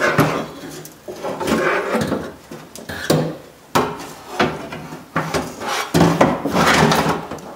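Window regulator and motor assembly from a Toyota Sequoia front door clunking and scraping against the door's inner sheet metal as it is worked out through the access hole: a series of irregular knocks and metal rubbing.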